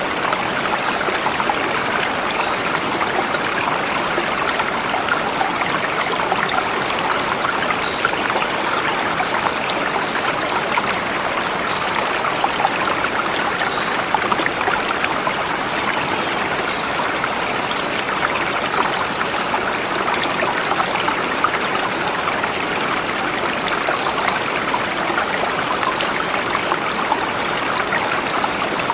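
Forest river flowing over rocks: a steady, even rushing and babbling of running water.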